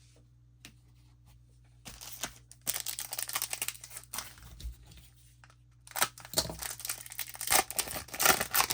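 A Topps Gallery baseball card pack wrapper being torn open and crinkled, in two spells of crackling: a shorter one about two seconds in and a louder one starting about six seconds in.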